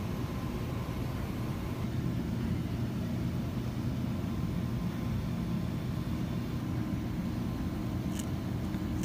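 Steady low hum and rumble of grocery-store ambience in front of open refrigerated display cases, with a faint steady tone and a brief click near the end.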